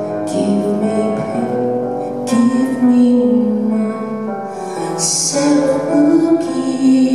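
Live music: a female singer with instrumental accompaniment, long held notes changing every second or two.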